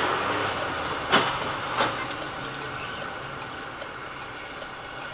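Steady road and tyre hiss on a wet road heard from inside a car, with two sharp knocks, one about a second in and another just under a second later.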